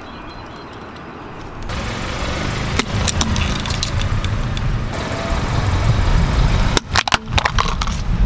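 A car rolling slowly onto small die-cast toy cars on asphalt, with the low rumble of its engine and tyres. A few sharp cracks come about three seconds in, and a quick cluster of cracks and snaps near the end as the toys break under the tyre.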